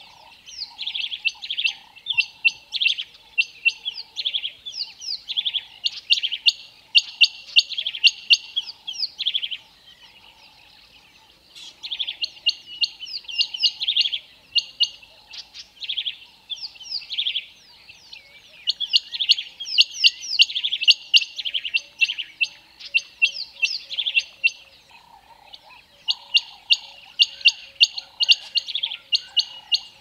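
Birds chirping: dense runs of rapid, high, quick chirps, with one short break about ten seconds in.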